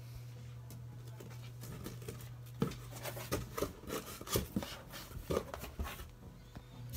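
Cardboard shipping box being opened by hand: irregular scraping, rustling and clicks of the flaps and lid being handled, busiest from about two seconds in, over a steady low hum.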